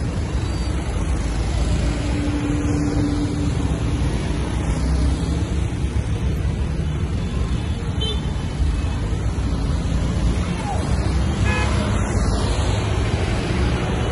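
Busy street traffic: a steady rumble of motorbike and car engines passing through an intersection, with a short horn toot about two-thirds of the way through.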